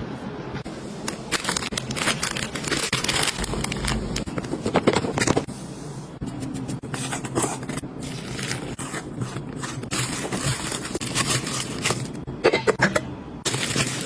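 Kitchen utensils scraping and clicking irregularly as food is prepared, with a few louder knocks about five seconds in and near the end.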